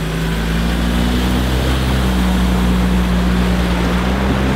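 4x4 pickup truck's engine running steadily at low revs as it wades through a river, with water rushing and splashing around the tyres.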